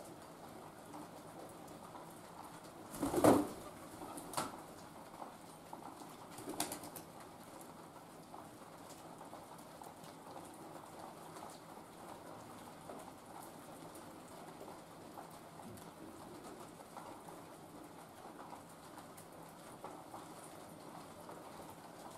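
City pigeon (Columba livia) sounds: one short, loud sound about three seconds in, then two fainter short ones, over a faint steady patter of rain.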